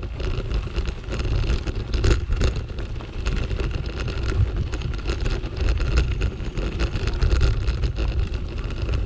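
Bicycle rolling over a gravel path: a steady low rumble of tyres and wind on the microphone, with frequent small clicks and rattles.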